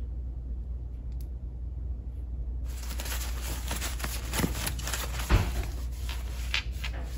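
Crinkling and rustling of white packing wrap being handled and cut open with scissors, starting about two and a half seconds in, with a dull thump a little after five seconds.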